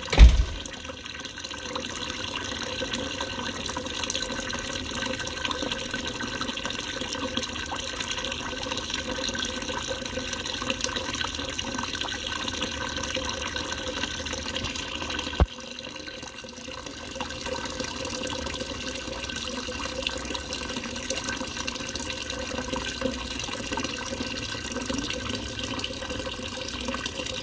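Thin stream of fountain water pouring steadily into a water-filled bowl, a constant running splash. A low thump comes right at the start, and a sharp click about halfway through, after which the water sound briefly drops.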